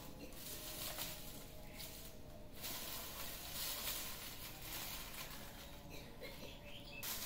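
Dry dead leaves rustling and crackling on and off as a kitten scrambles and pounces through a pile of them.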